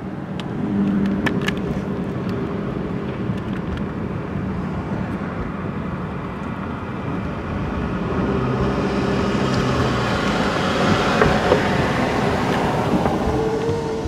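Road noise heard from inside a moving car: engine and tyres running steadily, growing louder and hissier from about eight seconds in, then easing near the end.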